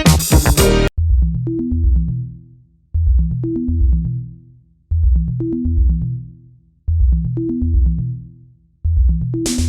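Electronic background music: after about a second the full mix drops away to a repeating low bass-synth phrase about every two seconds, and the full beat returns near the end.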